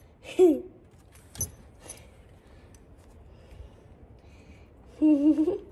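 Domestic cat meowing twice: a short meow that falls in pitch near the start and a louder, longer one near the end, with a couple of light taps in between.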